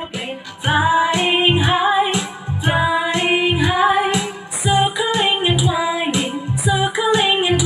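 A nursery rhyme sung by a woman over musical accompaniment with a steady beat.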